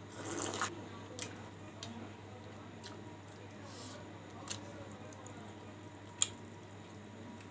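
A short slurp of thin tamarind sour soup sipped from a bowl, followed by scattered small sharp clicks and smacks of eating by hand and chewing, the sharpest about six seconds in. A low steady hum underlies it.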